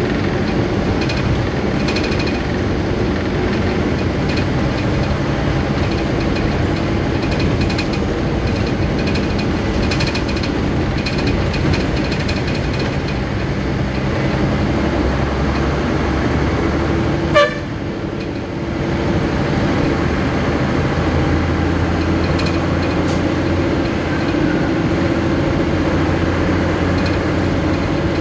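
Steady street traffic: vehicle engines running and passing, with short horn toots now and then. About 17 seconds in there is one sharp knock, followed by a brief drop in the traffic noise.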